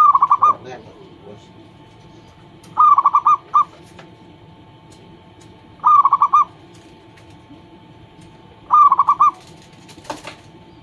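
Zebra dove (perkutut) singing its cooing song: four short phrases about three seconds apart, each a quick run of stuttering notes ending in a separate final note.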